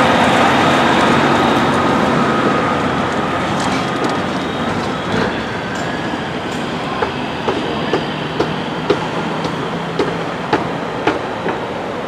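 Semi-truck pulling an empty dump trailer driving past, engine and trailer rumbling and rattling, fading as it moves off. In the second half, a run of sharp clicks comes about twice a second.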